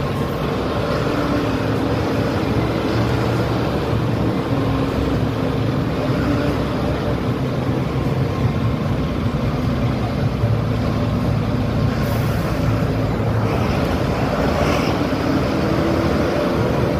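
A bus's engine running steadily at cruising speed, heard from an open side window of the moving bus, with road and wind noise.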